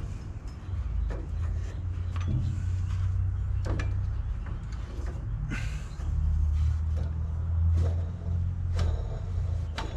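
Accessory pulleys of a Honda Civic's engine spun by hand with the drive belt off, a low rumbling whirr that swells and fades, with scattered clicks and knocks of handling. This is a check for a worn pulley bearing behind a whining noise.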